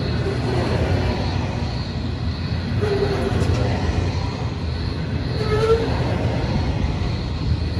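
Coal train's hopper wagons rolling past on the rails with a steady low rumble, and two short higher tones about three and five and a half seconds in.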